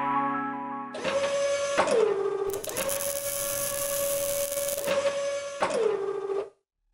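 Logo-sting sound effects of robotic arms at work: a steady electric servo whine that twice drops in pitch as the arms move, with a hissing, crackling burst in the middle like a cutting torch throwing sparks. Electronic music fades out at the very start, and the effects cut off shortly before the end.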